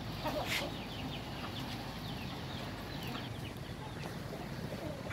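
A flock of chickens calling quietly, with many short falling chirps and clucks throughout.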